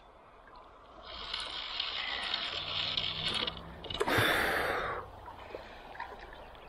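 A hooked brown trout thrashing and splashing at the water's surface as it is played on a fly rod, with the biggest splash about four seconds in, after a couple of seconds of steady hiss.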